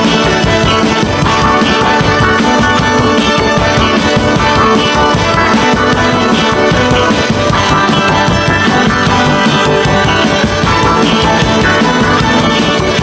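Background music: a band track with instruments and a steady beat.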